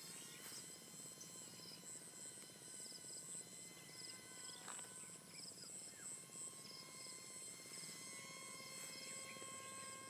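Insects trilling in quick, high-pitched repeated pulses, with a faint steady whine beneath.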